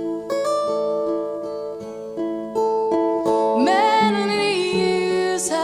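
Acoustic guitar picking a slow, gentle passage, played back from CD through ROYD Topaz loudspeakers and heard in the room. A woman's voice comes in wordlessly about three and a half seconds in.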